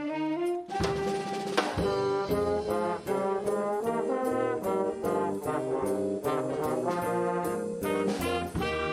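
Student jazz band playing with saxophones and brass, a fuller ensemble entering under a second in, over a steady beat.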